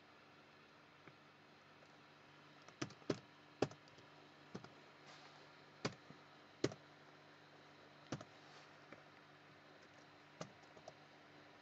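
Computer keyboard keystrokes: about ten separate clicks at uneven intervals over a faint steady hum.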